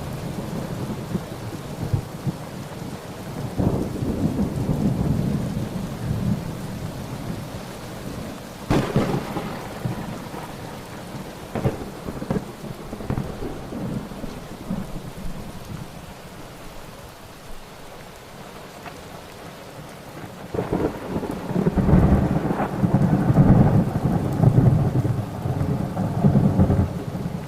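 Thunderstorm: steady rain with rolling thunder. A sharp thunderclap comes about a third of the way in, and a long, loud low rumble of thunder fills most of the last quarter.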